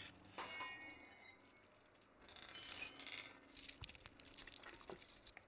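Advert sound effects for a ribbed steel bar: a short metallic ring about half a second in, then about three seconds of crackling and clinking as the bar is bitten.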